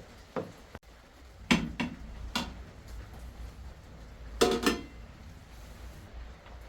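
Dishes and kitchen utensils clinking and knocking together in a series of short strikes, the loudest cluster about four and a half seconds in.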